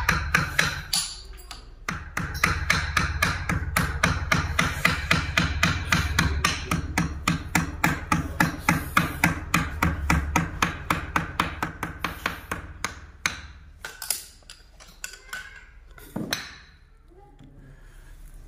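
Rapid, even hammer taps, about five a second, on the stitched seam of a leather cricket ball clamped in a steel holder, thinning to a few scattered strikes near the end.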